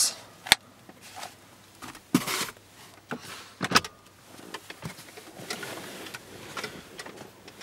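Handling noise at the car's open glove compartment: one sharp click about half a second in, then a short rustle and a couple of clicks, with soft handling noise after.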